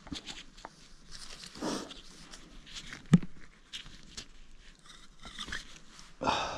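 Hands working on a disassembled Bafang G60 hub motor: scattered clicks and short rasps, with one sharp knock about three seconds in.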